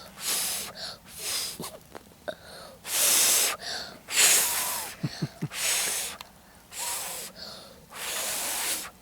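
A person breathing heavily close to the microphone, with a breathy puff of air about once a second.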